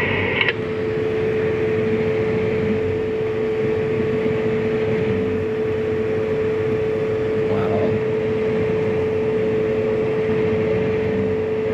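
A machine running steadily, a continuous mechanical hum with one constant whining tone held throughout.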